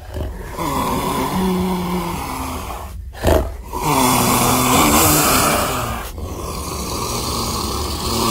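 Tyrannosaurus-style monster sound effect: long, rasping, throaty growls, three in a row, with a short sharp blast about three seconds in.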